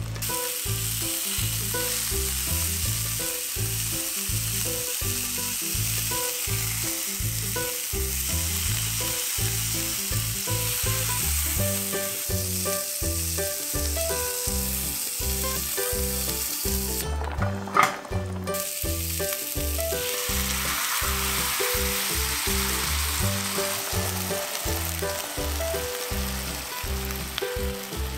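Food sizzling in oil in a frying pan, stirred with a spatula, over background music with a steady bass beat. The sizzle drops out briefly a little past halfway and comes back louder.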